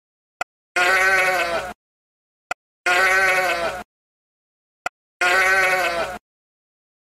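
Sheep bleating three times, each call about a second long with a wavering, quavering pitch. A short click comes just before each call.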